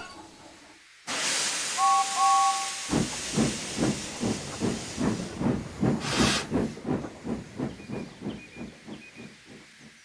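Steam locomotive blowing off a sudden loud hiss of steam and giving two short toots on a two-note whistle. It then starts to chuff at about two or three beats a second, with another burst of hiss partway through, as the chuffing fades away.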